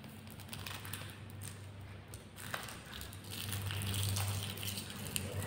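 Faint light clicks and taps of thin lidi sticks (palm-leaf midribs) being picked up and touching one another and the tiled floor, over a low steady hum.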